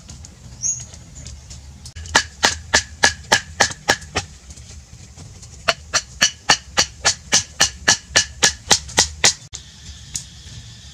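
Rapid, evenly spaced knocking, about four sharp strokes a second, in two runs: a short one about two seconds in and a longer one from about six to nine seconds in.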